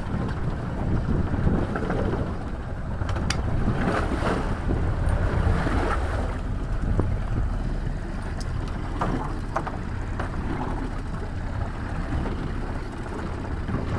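Wind buffeting the microphone over the steady rush of water around a small open panga boat under way, with a few brief clicks now and then.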